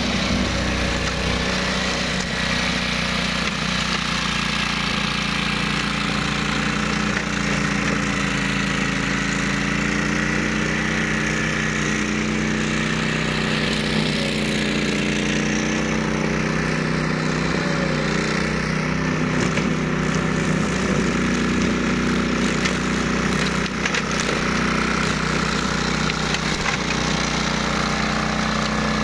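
Ride-on flail mower's engine running steadily, its pitch dipping and rising slightly in the middle.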